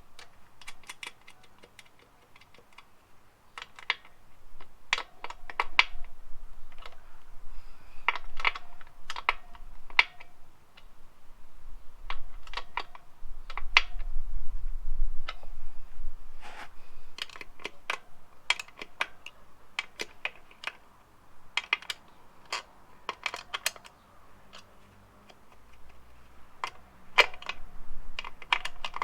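Socket ratchet tightening an enduro motorcycle's rear axle nut: bursts of rapid metallic clicking with short pauses between them.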